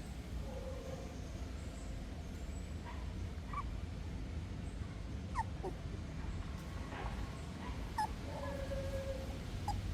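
Newborn puppies whimpering in short, high squeaks, scattered and growing more frequent toward the end, over a steady low hum.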